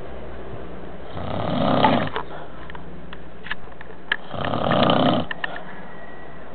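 Snoring: two long, rough snores about three seconds apart, each lasting about a second.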